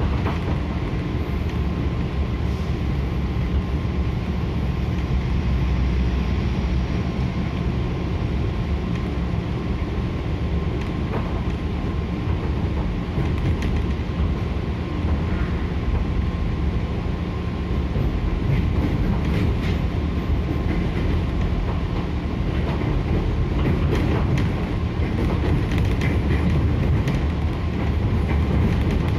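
Interior of a JR 205-0 series electric multiple unit running along the track: a steady low rumble with a thin steady whine. Sharp rail clicks come scattered through it, more often in the second half.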